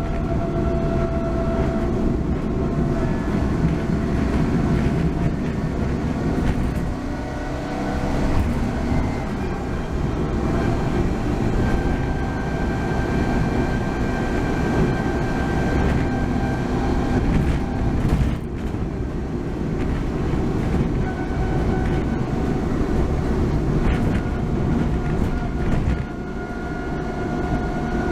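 Honda Acty van driving: a steady low road and drivetrain rumble with thin whining tones over it that shift slightly in pitch, and a brief break about two-thirds through. The whine is the transmission's abnormal noise, which the repair did not cure.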